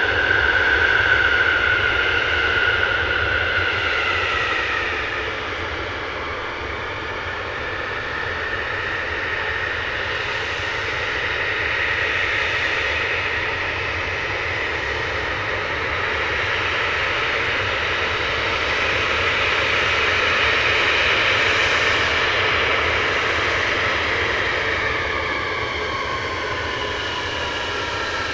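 Tu-22M3 bombers' NK-25 turbofan jet engines running at taxi power: a loud, steady roar with a high whine. The whine falls in pitch about four seconds in and again near the end as the taxiing aircraft pass.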